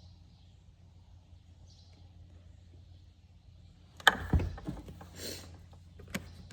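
A low steady hum, then about four seconds in a sudden loud knock followed by a run of smaller knocks, rattles and rustling, like something being handled or moved.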